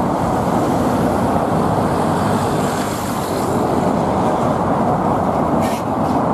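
Steady noise of heavy city street traffic, engines and tyres blending together, with no siren audible. A short high hiss about five and a half seconds in.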